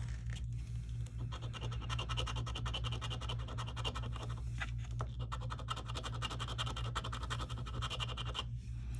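Rapid back-and-forth scraping of a coin-like scratcher disc rubbing the latex coating off a scratch-off lottery ticket, with a couple of brief pauses between spots.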